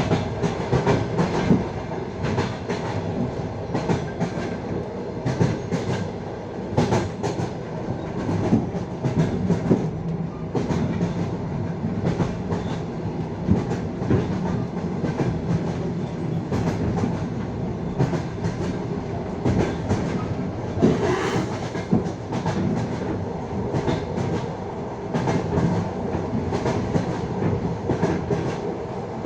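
Passenger train wheels clattering over rail joints at speed, a steady rumble broken by frequent sharp knocks, heard from a carriage window.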